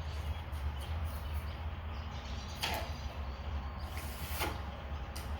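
Pencil drawn along a straightedge across a wooden board to join two marks, giving a couple of brief light scrapes over a steady low hum.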